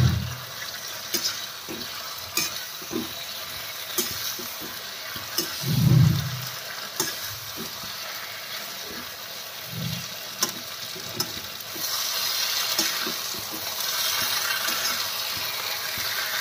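Paneer cubes and peppers in sauce sizzling in an iron kadhai while a metal spatula stirs and scrapes them, with scattered clicks of the spatula on the pan and a few dull thumps. The sizzle grows louder about twelve seconds in.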